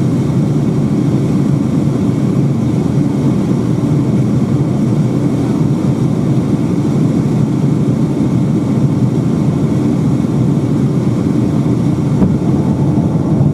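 Steady cabin noise of a Boeing 757-200 in flight: an even rumble of engines and rushing air that does not change, with one brief knock about twelve seconds in.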